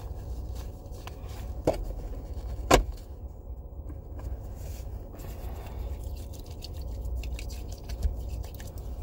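Low steady rumble of a car engine idling, heard from inside the cabin, with rustling and a few sharp knocks as the driver moves about in her seat; the loudest knock comes nearly three seconds in.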